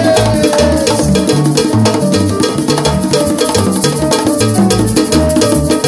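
Live salsa band playing, with a pair of congas struck by hand over dense percussion and a low line of changing bass notes.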